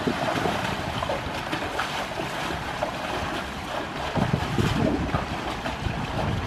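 Water splashing and sloshing as Asian elephants wade through a pool, with wind buffeting the microphone in low gusts, strongest about four seconds in.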